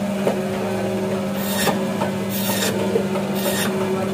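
Electric band saw running with a steady hum while its blade rasps through pangas fish, cutting it into steaks. Three rasping cuts come about a second apart in the second half.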